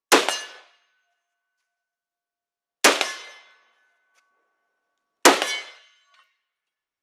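Three single rifle shots from an IWI Galil ACE in .308, about two and a half seconds apart. Each shot is followed by a short metallic ring from the steel target being hit, which dies away in about half a second.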